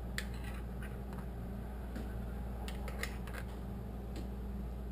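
Faint clicks and light scrapes of a metal spoon against a glass mason jar as foam is skimmed off fresh green juice, over a steady low hum.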